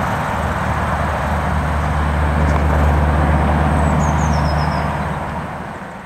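Scania R500 timber truck's V8 diesel engine driving off, a steady low drone that fades near the end.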